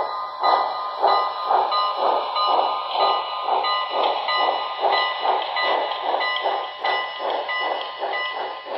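HO scale model of a Pennsylvania Railroad M1b 4-8-2 steam locomotive running with sound, giving a steady chuffing exhaust of about three chuffs a second over a faint steady whine. The chuffs grow a little fainter near the end as the locomotive moves away.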